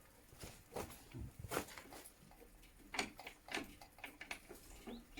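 Irregular clicks and clinks of metal tools and engine parts being handled while the cylinder and piston group of an Izh Jupiter 5 motorcycle engine is taken apart, the sharpest knocks about one and a half and three seconds in.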